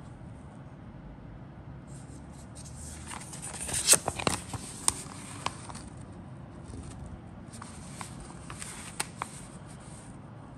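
Paper kit instruction sheet rustling and crackling as it is handled, with the sharpest crinkles about four seconds in and a couple more near the end.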